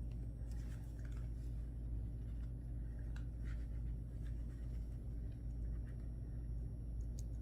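Faint small clicks and scrapes of pliers and a metal crimp cover being handled while a crimp cover is squeezed over a crimp tube, over a steady low hum. The clicks come in a few scattered groups.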